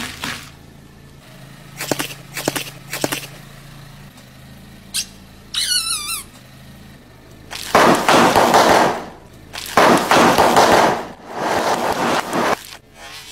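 A rubber squeaky toy gives a short wavering squeal, then a car tyre rolls over a row of sealed potato chip bags, popping and crunching them in three long, loud crackling bursts. A few short sharp cracks come earlier.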